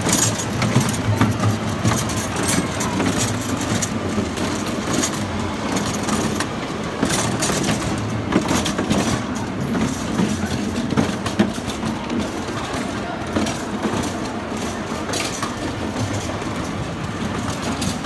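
Small electric kiddie ride train running along its track, heard from a seat in its cars: a steady rumble with frequent irregular clicks and rattles.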